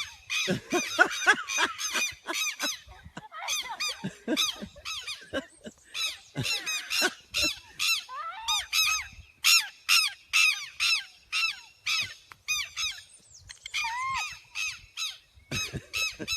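A bird giving harsh, honking calls over and over, about two to three a second, with a few short pauses.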